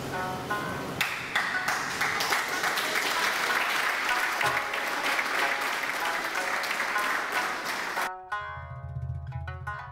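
A large group applauding over plucked-string music. About eight seconds in the clapping cuts off abruptly and the plucked-string music carries on alone.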